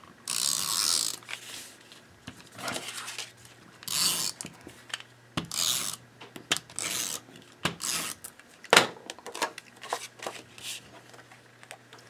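Adhesive tape runner drawn across the back of a paper layer in several short rasping strokes, about a second apart. Scattered clicks and one sharp knock follow as the paper is pressed onto the card base.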